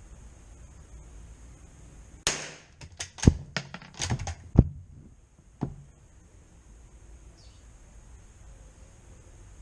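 Bolt-action .22 rifle being handled: a quick run of about eight sharp metallic clicks and clacks over three seconds, two of them louder than the rest, typical of the bolt being worked.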